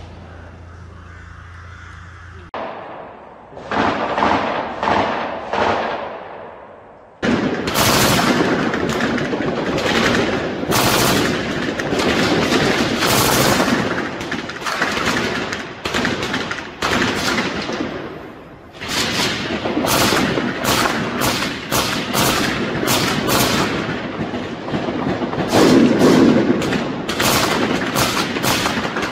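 Automatic gunfire in a firefight. A few separate bursts come first, then from about seven seconds in the shots come thick and fast in long bursts with only brief lulls.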